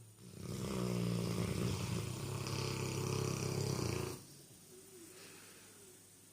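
Sleeping Cane Corso dog snoring: one long, loud snore that starts about half a second in and stops sharply about four seconds in, then quieter breathing.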